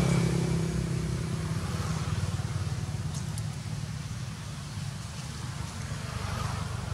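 A motor vehicle's engine running with a steady low hum, loudest at the start and fading away.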